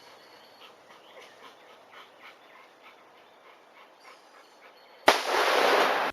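A single .44 Magnum shot from a Ruger New Super Blackhawk revolver loaded with Buffalo Bore 340-grain +P+ rounds, fired at a small steel safe. It comes suddenly about five seconds in and is followed by about a second of loud rumbling noise, after a quiet stretch with faint ticks.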